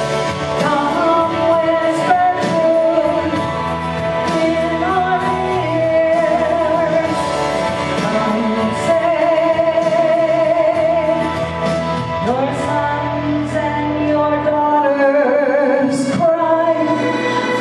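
A woman singing solo into a handheld microphone over instrumental backing, holding long notes with vibrato.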